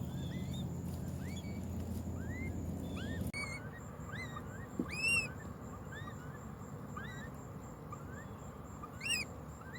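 Nestling birds, taken to be baby woodpeckers, calling: a steady series of short, high, upward-sweeping chirps about twice a second, with a few louder, arched calls near the middle and the end.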